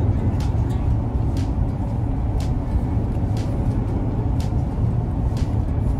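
Truck cabin road noise while driving: a steady low rumble, with a light high tick about once a second.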